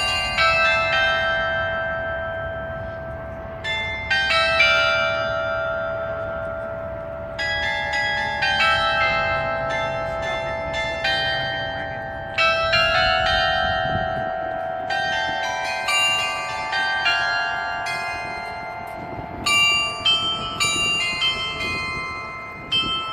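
A 95-bell carillon playing a melody in phrases of struck bell notes, each note ringing on long after it is struck, with brief gaps between phrases.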